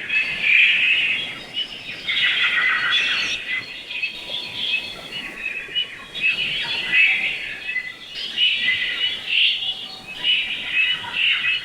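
A flock of small birds chirping and twittering together, many overlapping high calls that swell and ease in waves every couple of seconds.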